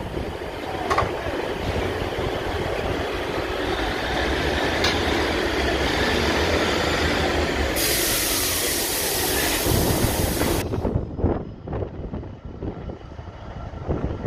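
Diesel multiple unit running alongside at close range, a steady diesel rumble with rail noise. From about eight seconds a loud hiss joins in and then cuts off suddenly, after which only lower, gusty background sound remains.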